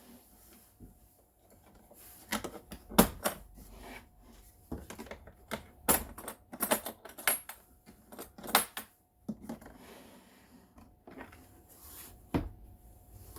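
Irregular sharp clicks and clinks of tools being handled in a plastic tool case, with metal sockets knocking as they are lifted out. The clicks come in two busy clusters and then once more near the end.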